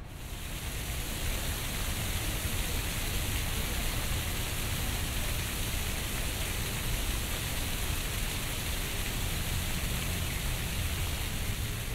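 Fountain water splashing in a steady, even rush, swelling in over the first second, over a low background rumble. The fountain acts as a masking source laid over the park's ambient sound.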